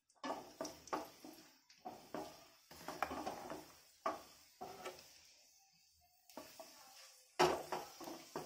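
Wooden spatula stirring and knocking against a nonstick frying pan in irregular taps, over a light sizzle of cashews and raisins frying in ghee. It goes quieter for a couple of seconds past the middle, then the knocking picks up again near the end.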